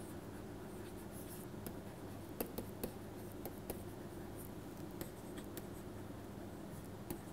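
Stylus tapping and scratching on a pen tablet while handwriting: a few faint, irregular ticks over a steady low hum.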